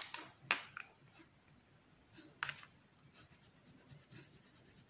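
Colored pencil scratching on paper. A few separate strokes come first, then from about three seconds in a quick, even run of back-and-forth shading strokes, about seven a second.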